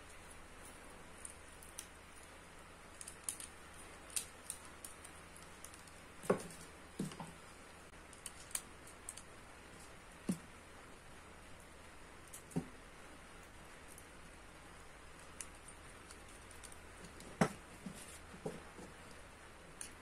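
Scattered light clicks and taps of hands-on electrical wiring work: a screwdriver, stiff wires and small plastic indicator lamps being handled and fitted, with a few sharper knocks among them.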